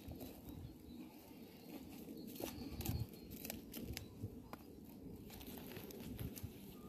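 Handling noises: scattered small clicks and crinkling over a low rumble, loudest about three seconds in.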